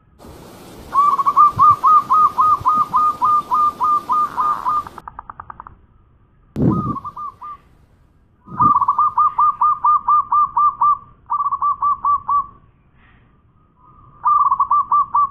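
Zebra dove (perkutut) cooing: rapid runs of short, bright notes at about five or six a second, in five bouts of different lengths, the first and longest lasting about four seconds.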